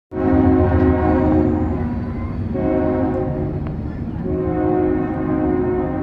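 Train horn sounding a chord of several steady tones in long blasts, breaking briefly about two and a half seconds in and again just after four seconds, then sounding on to the end.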